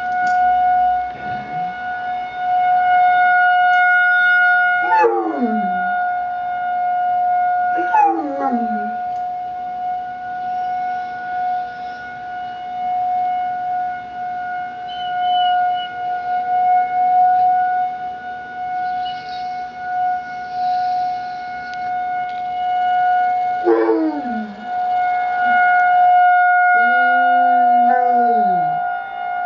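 Outdoor emergency test siren holding one steady tone throughout, while a basset hound puppy howls along with it: short howls that slide downward, three times, then a longer howl that rises and falls near the end.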